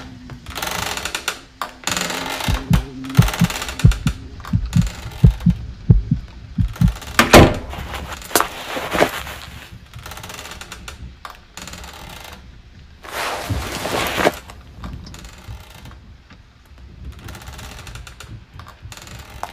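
Film soundtrack sound effects: a run of low thuds about three a second, a loud sharp knock just after seven seconds in, and a burst of hissing noise around thirteen seconds, over faint music.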